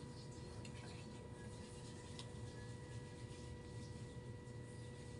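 Quiet room tone: a steady low hum with faint steady tones above it, and a few faint clicks and rubs as a plastic foundation tube is handled in the fingers.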